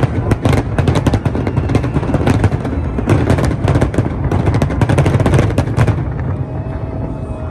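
Fireworks going off in rapid succession: a dense run of bangs and crackles over a low rumble, thinning out about six seconds in.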